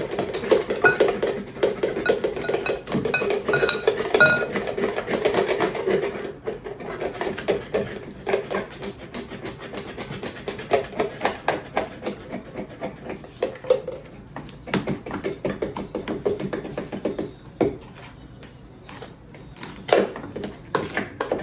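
Kitchen utensils and dishes clinking, knocking and scraping in a run of quick irregular clicks while baking ingredients are handled. A song plays for the first few seconds.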